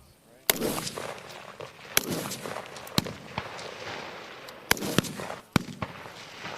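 Rifle fire on a qualification range: about half a dozen single shots from 5.56 mm M4 and M27 rifles, irregularly spaced, each with an echoing tail. The loudest crack comes about half a second in.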